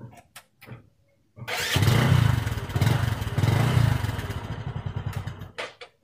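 A few light clicks, then a motorcycle engine starts with the key and runs for about four seconds, rising and falling twice, before it is cut off. It starts normally because the remote has just disarmed the anti-theft alarm's immobiliser.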